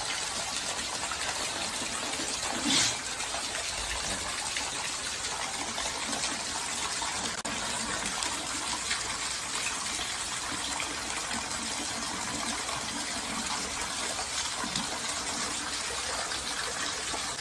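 Hurricane wind and rain, a steady rushing noise, with one brief louder burst about three seconds in.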